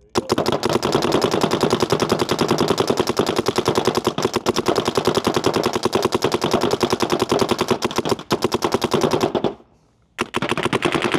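A DLX Luxe IDOL electropneumatic paintball marker running on compressed air and firing long, rapid strings of shots. It is emptying a whole pod of paint as part of an efficiency test. The firing stops for about half a second near the end, then starts again.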